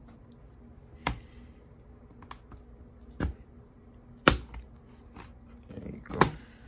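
Plastic retaining clips of an HP 15-dw0038wm laptop's bottom case snapping loose as a pry tool works along the seam: four sharp clicks about a second or two apart, with a few fainter ticks between.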